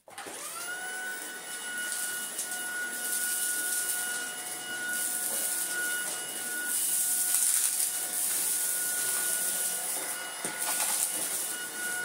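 Tineco A10 Hero cordless stick vacuum switched on at max power: its motor whine rises quickly right at the start and settles into a steady high-pitched whistle as it runs over a rug. A few brief crackles near the end as it sucks up sawdust.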